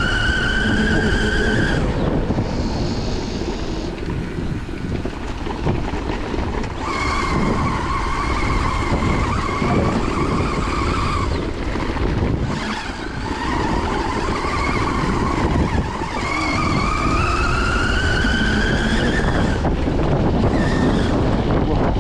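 Whine of a CYC X1 Pro electric mid-drive motor pulling under throttle, rising in pitch as the bike speeds up. It comes in about four pulls and drops out between them as the throttle is let off. Under it runs a steady low rumble of tyres rolling over a dirt trail.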